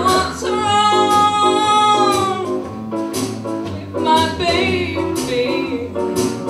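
A woman sings a jazz song into a microphone, backed by piano, double bass and drums. About half a second in she holds one long note for about two seconds, over plucked bass notes and steady drum strokes.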